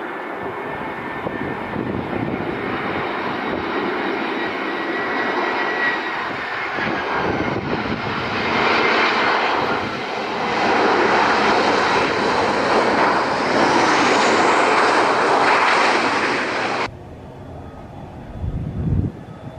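Jet engines of a Batik Air Airbus A320 on landing: a steady roar with a falling whine on short final, growing louder once the jet is down and rolling out on the runway. Near the end the sound cuts off suddenly to a quieter jet airliner's engine noise on the runway.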